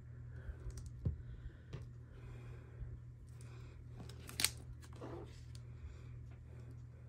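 Small paper-crafting handling sounds: light clicks and taps of metal tweezers and a glue pen against cardstock and a cutting mat, with soft rustles of paper. A low knock comes about a second in and the sharpest click about four and a half seconds in, over a steady low hum.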